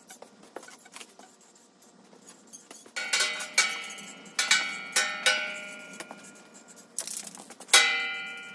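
Spray painting steel parts inside a steel drum: several sharp metallic knocks, each ringing at the same pitch and fading, with a short hiss of the aerosol spray paint can about seven seconds in.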